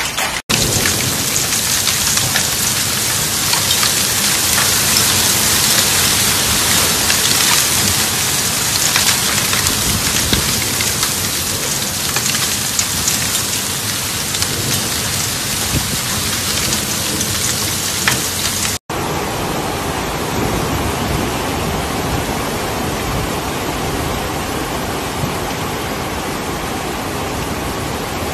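Hail and heavy rain pelting down, a dense steady hiss. It cuts out abruptly about half a second in and again about two-thirds through, and after the second break it is duller and less hissy.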